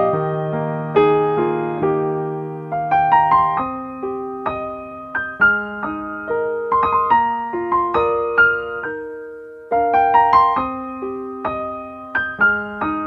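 Gentle, slow piano-like keyboard music: single struck notes and small rising clusters that ring and fade, over a low held note at the start, with a brief pause about ten seconds in.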